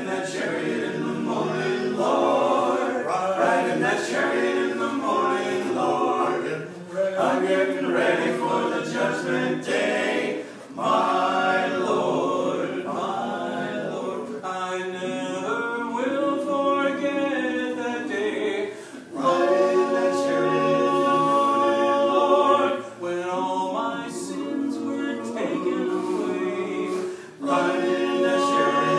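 Barbershop quartet of four men singing a cappella in close four-part harmony. The song moves in phrases with short breaks between them, and two long held chords, one a little past the middle and one near the end.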